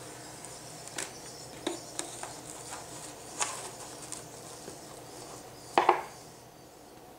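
Plastic cling wrap being stretched over and pressed onto a disposable aluminium foil tray: scattered crinkles and clicks, with a louder double crackle about six seconds in.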